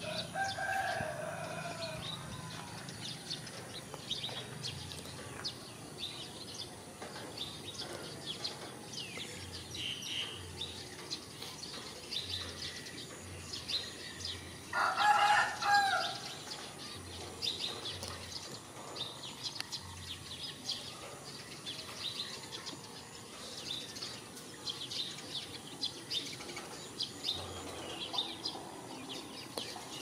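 A rooster crows once about halfway through, a drawn-out call of about a second and a half and the loudest sound. It sits over continual high chirping of small birds, with a shorter call near the start.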